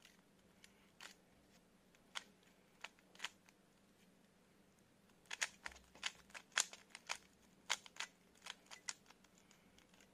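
Rubik's cube being twisted by hand: the plastic layers click as they turn, a few scattered turns at first, then a quicker run of clicks about five seconds in that lasts a few seconds.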